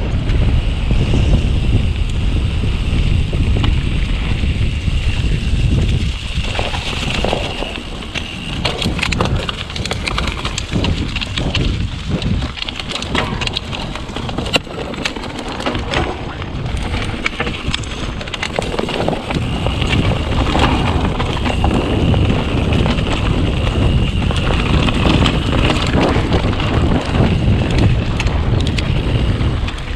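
YT mountain bike descending a dirt and forest trail at speed, heard from the handlebars: wind on the microphone and tyre rumble over the ground, with frequent knocks and rattles from the bike over bumps.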